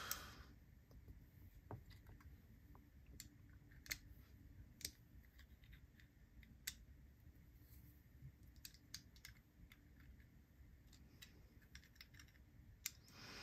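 Faint, irregular small clicks of a metal proprietary driver tool working the pivot screw of a Wingman EDC Mach 3 folding knife, with a few sharper ticks, over a low steady hum.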